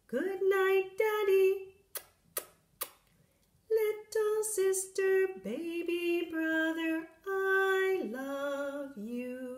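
A woman's voice singing a slow goodnight song in short phrases with long held notes, with a child's voice among the sung lines. Three short sharp clicks about two seconds in, during a pause in the song.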